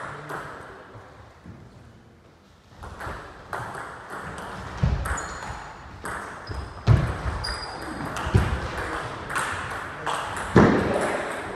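Table tennis rally: the celluloid ball clicking sharply off the table and the rackets in a quick run of strikes, with a few louder, deeper thumps among them.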